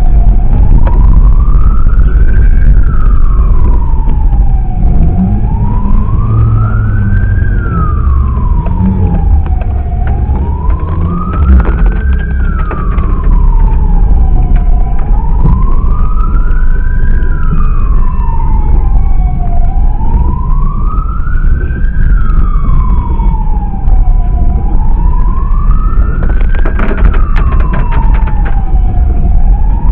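Emergency vehicle siren wailing, its pitch rising and falling slowly about once every five seconds, over a heavy low rumble.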